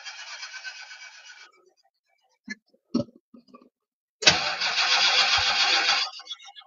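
Ford 429 Thunderjet V8 cranked on its starter in two bursts without catching: one fading out about a second and a half in, and a longer, louder one near the end. It is being cranked to fill a freshly installed Edelbrock VRS 4150 carburetor with fuel on its first start.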